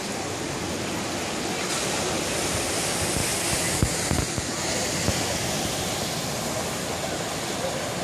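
Steady rushing wash of ocean surf against rocks, with a few brief low thumps about four and five seconds in.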